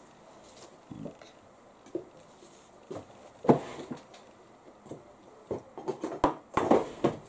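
Cotton fabric being handled and shifted on a table: a string of short rustles and light knocks, one louder about halfway through and a busier run near the end.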